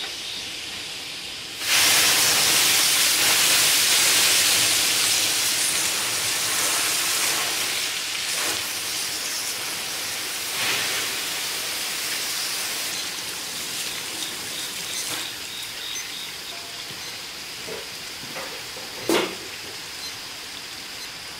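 Loud hiss of steam inside a hot wood-fired barbecue smoker being steam-cleaned with water boiling in its bottom. The hiss starts suddenly about two seconds in and slowly dies down, with a single sharp knock near the end.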